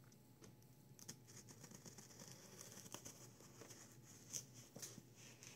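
Faint scratching and crackling of a Spyderco Native folding knife slicing through packing tape on a cardboard box, with a few light clicks.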